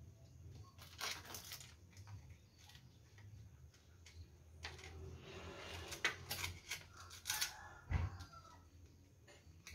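Clicks, scrapes and rustles of hands handling a small plastic potentiometer and its wiring on an electric backpack sprayer. There is a cluster of sharper clicks late on and a single low thump near the end.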